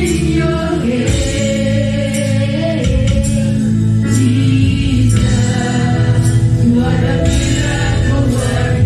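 A group of women singing a gospel praise song into microphones, with live band accompaniment including bass guitar.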